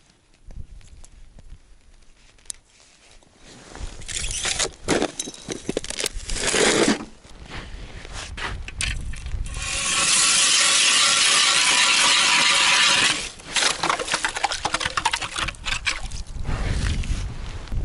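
An ice auger's spiral blades drilling through lake ice: rough, irregular crunching and scraping that swells into a loud, steady grind for about three seconds midway, then goes back to uneven crunching. The first few seconds are quiet, with only faint handling sounds.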